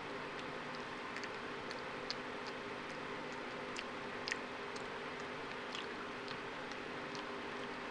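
Java macaque eating with her fingers: scattered small, irregular wet clicks of lip smacking and chewing, over a steady background hum.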